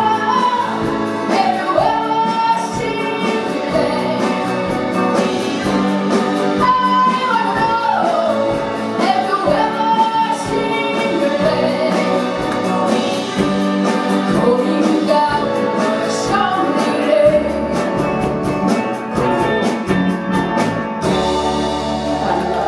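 Live rock band with a female lead singer, electric guitars, bass guitar, drum kit and keyboard, playing a song. About 21 seconds in, the band lands on a long held final chord as the song ends.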